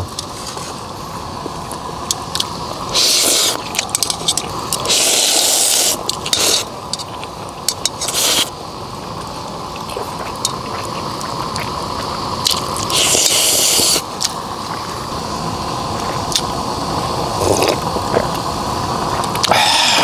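Food sizzling and crackling on a hot iron griddle over a fire-pit grill, with louder spurts of hiss several times.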